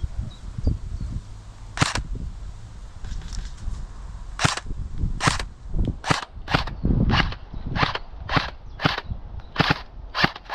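Airsoft guns firing single shots, about a dozen sharp cracks at irregular intervals, coming quicker from about four seconds in: suppressing fire.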